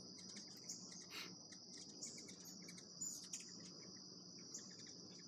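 Faint, steady high-pitched trill of insects, with a few short chirps scattered over it.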